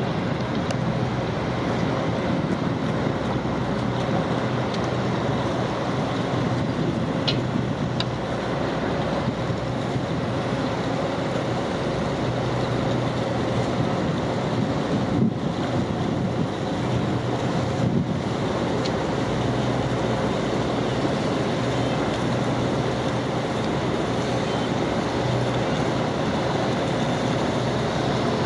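A boat's engine drones steadily under way, a constant low hum over rushing wind and water noise.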